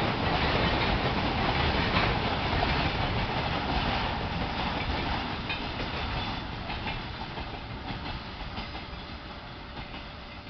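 Train rolling over the rails with a clickety-clack of wheels on rail joints, fading steadily as it moves away.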